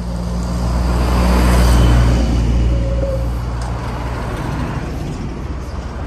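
Road traffic: a heavy truck driving along the road, its engine running low and steady under tyre noise. The sound swells to its loudest about two seconds in, then eases slowly.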